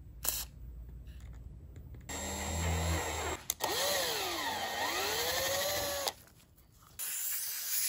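Cordless drill driving a 1/4-28 tap to cut threads in a hole in a 7075 aluminum part, its motor whine slowing to a lower pitch and speeding back up mid-cut. A steady hiss starts near the end.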